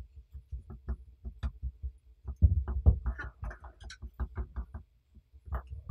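Knife cutting through soft dough in an aluminium baking pan: a rapid, uneven series of light knocks and taps as the blade strikes the pan.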